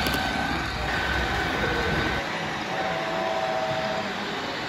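HO scale model passenger train running past close by on the layout, a steady rumble with a high tone that drops away about two seconds in. A brief steady two-note tone follows.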